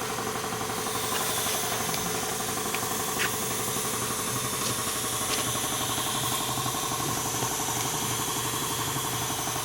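A motor running steadily at an even speed, a constant hum with several held tones and a fine regular pulse, with a faint click or two.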